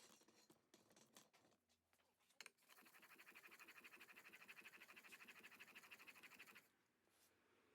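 Faint scratching, then an old wooden-bodied jointer hand plane taking one long, even rasping stroke of about four seconds with a fast flutter, which stops suddenly: the freshly sharpened blade cutting a shaving.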